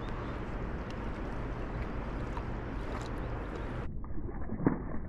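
Steady rush of river water with wind rumbling on the microphone, and one short knock near the end.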